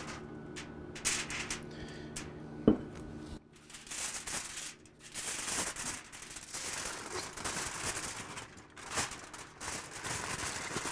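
A steady low hum with one sharp click about two and a half seconds in. Then, after a brief break, irregular crinkling and rustling of wrapping material as a smoked pork brisket is folded up in it.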